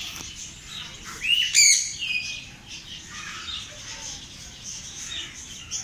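Several small caged birds chirping and calling in short whistled notes, with one louder, harsher call about a second and a half in.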